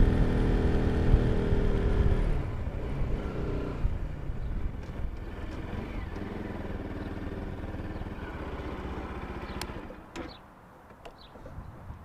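Motorcycle engine running under throttle, then easing off after about two seconds to a lower, steady run as the bike slows. Near the end the engine sound drops away sharply.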